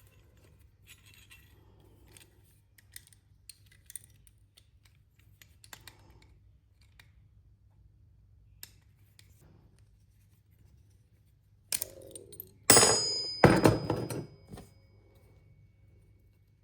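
Faint scattered clicks of small parts being handled, then a sharp knock and a loud two-second clatter of metal pieces against a hard surface, with a ringing metallic note that dies away over a couple of seconds.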